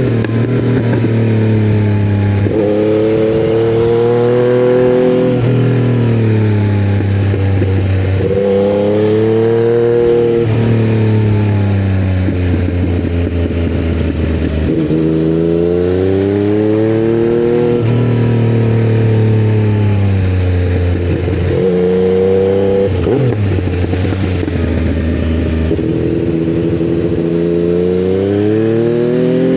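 2020 Yamaha MT-09's inline three-cylinder engine, breathing through custom headers and a titanium Akrapovic silencer, under way. Its revs climb and drop back again and again, as it pulls hard and then shifts or eases off.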